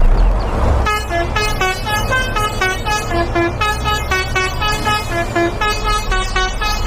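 Heavy vehicle engine rumbling, with a musical multi-note horn playing a quick tune of short notes from about a second in.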